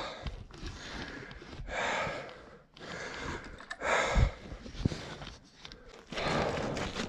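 A man breathing hard and out of breath from heavy exertion, in short rasping breaths about a second apart, with a dull thump about four seconds in.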